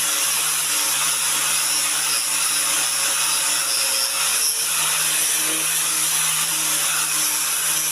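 Washing machine running: a steady motor hum under an even hiss, with no knocks or changes.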